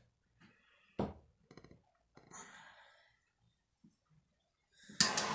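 A few faint clicks and rustles of handling, then near the end a sharp click as a handheld gas torch lights and a loud, steady hiss begins. The torch is being used to flame the surface of freshly poured epoxy resin.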